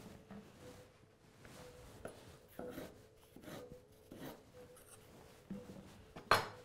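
A chef's knife slicing bell pepper on a bamboo cutting board: soft, irregular taps and scrapes of the blade through the pepper onto the wood, with one sharper knock shortly before the end.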